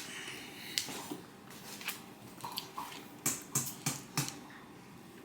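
Handling noise from a phone held by a toddler: scattered sharp taps and knocks, then a quick run of four near the end.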